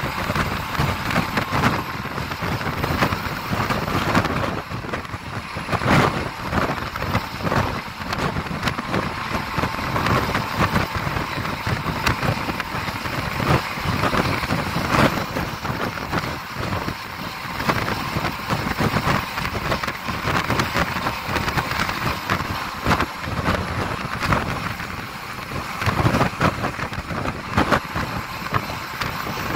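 Wind rushing over a microphone held out of the window of a bus travelling fast, mixed with road and engine noise, fluttering and gusting throughout.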